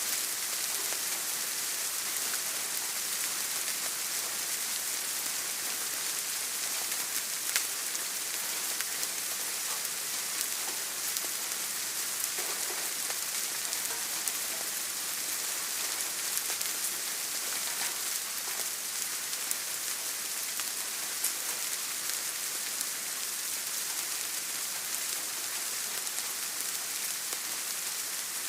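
Steady rain falling on a surface, a constant hiss with scattered individual drop ticks, one a little louder about seven and a half seconds in.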